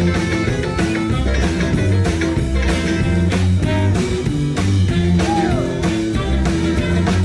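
A live rock-and-roll band playing, with electric guitar over drums.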